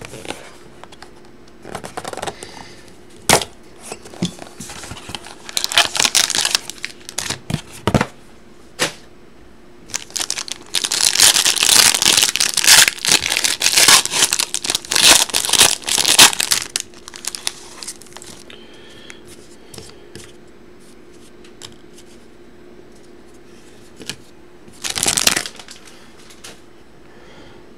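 Plastic and foil wrapping of a 2020-21 Upper Deck Stature hockey card box being torn open and crinkled by hand. Scattered clicks and taps of handling come first, then a dense spell of crinkling and tearing in the middle, and a short rustle near the end.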